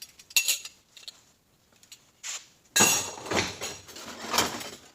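Metal automatic-transmission parts being handled on a bench. A few light clinks come first, then, a little before the midpoint, about two seconds of louder clattering and rattling of metal on metal.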